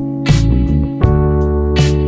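Background instrumental music: sustained chords with a drum hit about every second and a half.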